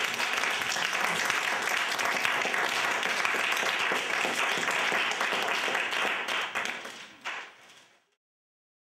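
A small audience applauding steadily, the clapping dying away about seven seconds in.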